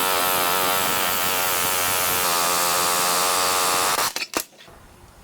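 A handheld power tool running steadily at full speed, then stopping about four seconds in, followed by a few sharp clicks.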